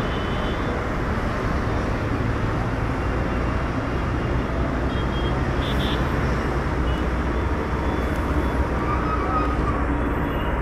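Boeing 787-8's twin turbofan jet engines at takeoff power: a steady, loud, deep rumble as the airliner rolls down the runway and lifts off.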